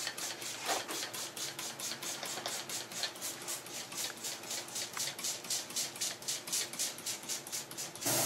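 Hand trigger spray bottle squeezed rapidly and repeatedly, each pull giving a short hiss of mist, about five a second in an even rhythm, as glue is misted over model scenery.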